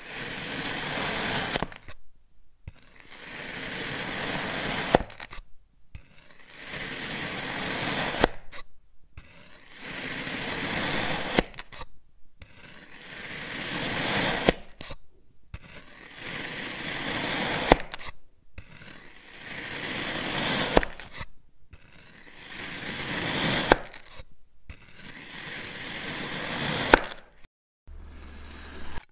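A knife slicing through a block of packed sand, a gritty crunching scrape repeated about nine times. Each cut lasts a couple of seconds, swells in loudness and ends with a sharp click.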